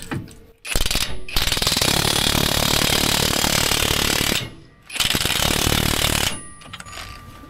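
Cordless impact wrench hammering on a leaf-spring U-bolt nut to break it loose, in two bursts: a long one of about three and a half seconds, a short pause, then a shorter one.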